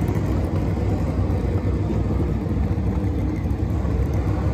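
Several NASCAR Cup cars' pushrod V8 engines running at low speed, a steady deep rumble as the cars roll past at close range.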